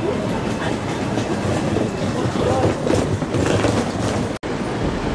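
JR East 701 series electric multiple unit rolling slowly into the platform, its wheels clacking over the rail joints, under low passenger chatter. The sound cuts out for an instant near the end.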